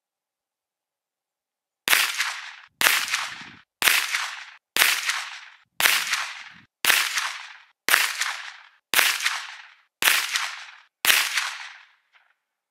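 Ten .22 LR rifle shots from a Tikka T1x UPR bolt-action rimfire firing CCI Standard 40-grain standard-velocity ammunition, about one a second. Each is a sharp crack with a tail that dies away over most of a second.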